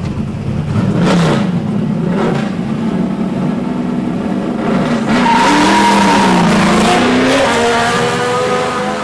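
Drift cars' engines revving hard, the pitch rising and falling repeatedly. About five seconds in it grows louder, with climbing revs and squealing tyres as the cars slide by.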